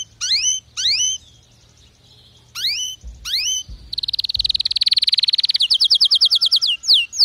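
Canary singing: a few separate rising whistled notes, then about four seconds in a very fast buzzing trill, a slower trill of repeated notes, and falling whistled slurs near the end.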